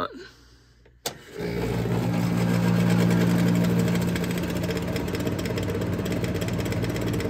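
A vintage Carrier Cosmopolitan room air conditioner switched on with a sharp click about a second in, then starting up and running: a steady hum over a rushing noise.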